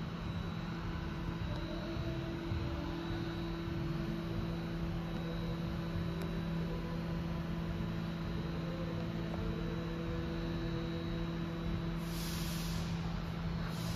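Steady electrical hum with fan-like noise from a powered-up Haas VF-2SS CNC vertical machining center standing idle, with a brief hiss near the end.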